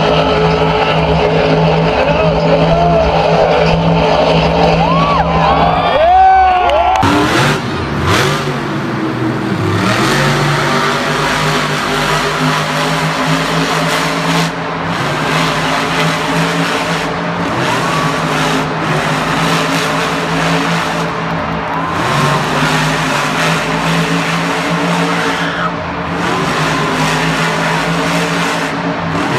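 Monster trucks' supercharged V8 engines held at high revs through cyclone spins, running steadily with short rises in pitch. The sound changes abruptly about seven seconds in, where a second truck takes over.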